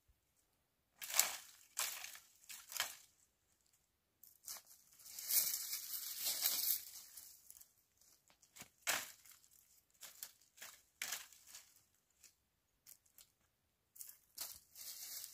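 Dry branches and brushwood rustling and crackling as they are gathered and laid on a pile. Scattered sharp snaps come through, with a few seconds of continuous rustling near the middle.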